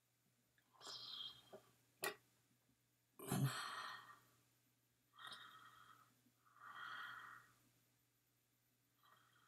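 A person's breaths and sighs close to the microphone, about five in all, the loudest about three seconds in. A single sharp click, like a computer mouse button, comes about two seconds in.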